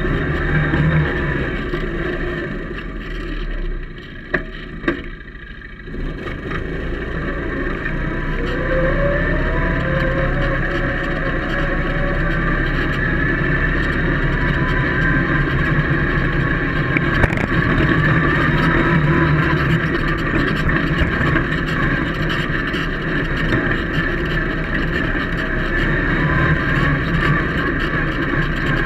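Polaris Magnum 425 ATV's single-cylinder four-stroke engine running while being ridden. The engine falls away about four seconds in, with two sharp knocks. From about eight seconds it climbs in pitch as the machine accelerates, then settles into steady running.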